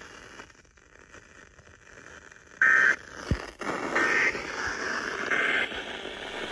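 Three short electronic beeps, each about a third of a second, roughly one and a half seconds apart; the middle one is slightly higher in pitch. They sound over a steady radio hiss, on an off-air broadcast radio recording.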